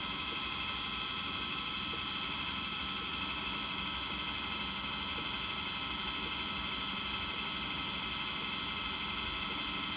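Mini bench drill press motor running steadily on a slow speed setting, a constant even hum that does not change in pitch or level.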